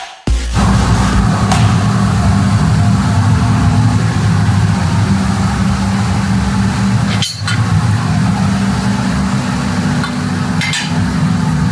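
AC TIG welding arc on aluminium: a steady low buzz with hiss, broken off briefly about seven seconds in.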